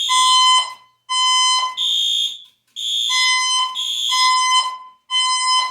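Fire alarm sounding its evacuation signal: shrill, pitched blasts repeating about once a second, with short gaps between them.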